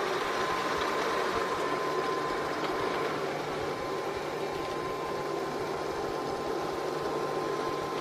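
LG Roboking robot vacuum running as it drives across the floor and rug, homing in on its charging dock. Its motors make a steady whir with a thin, steady high whine.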